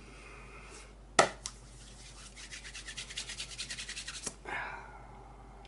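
A single sharp hand clap, then palms rubbed briskly together in quick, even back-and-forth strokes for about two seconds, ending with a light tap.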